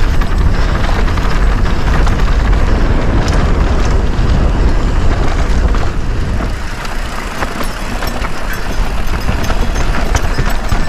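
Mountain bike descending a rocky trail, heard through an action camera's microphone: heavy wind buffeting on the mic over tyres crunching on rock and dirt and the bike's chain and frame rattling and knocking. The wind rumble eases about six seconds in and builds again near the end.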